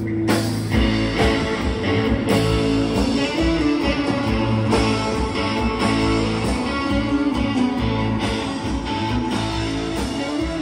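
Live band playing amplified electric guitars over a drum kit, with no singing.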